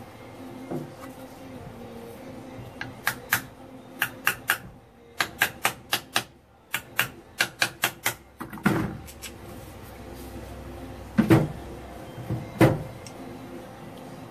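Ball-peen hammer striking metal at the CV joint of a Jeep Wrangler JK front driveshaft: a quick run of sharp taps, then a few heavier, duller blows near the end.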